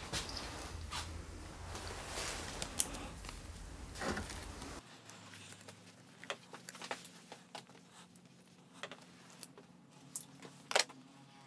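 Close handling of wiring and plastic connectors: rustling and scraping, with a few sharp clicks and one snap near the end.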